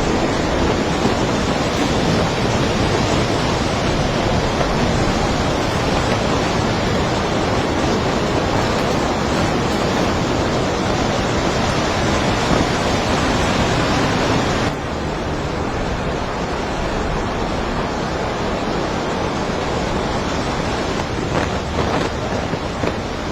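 Strong storm wind blowing hard on the microphone, a steady rushing noise with no siren audible. About fifteen seconds in it cuts to a slightly quieter stretch of the same wind noise, with a few faint knocks near the end.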